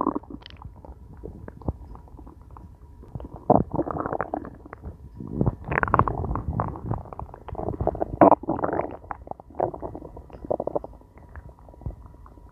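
A hungry stomach growling and gurgling in irregular bouts of uneven length, with quieter stretches between them.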